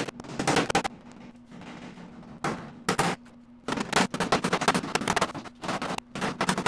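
Hand tool worked against the edge of a sheet-steel patch panel held in a hammer form, trimming away excess metal, with irregular runs of sharp metallic strokes: a short group at first, another around three seconds in, and then a dense, continuous run. A faint steady hum lies underneath.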